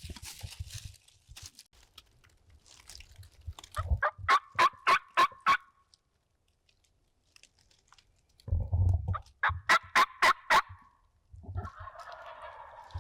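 Two runs of loud turkey yelps, each about seven sharp notes at roughly four a second, the first about four seconds in and the second about nine and a half seconds in. A low rumble comes just before the second run.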